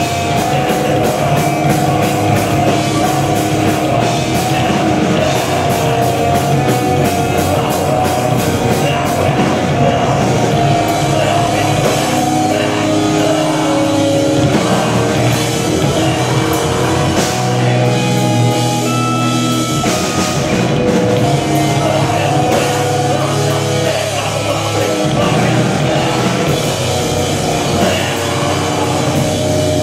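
A heavy rock band playing live: distorted electric guitars, bass guitar and a drum kit, loud and steady, with fast drum and cymbal hits in the first part.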